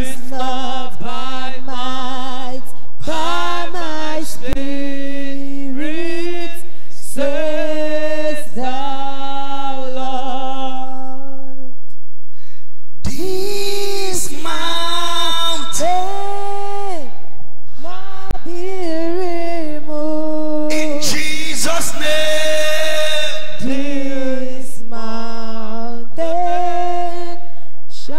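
A man singing unaccompanied into a microphone in long held phrases, with a short break about twelve seconds in.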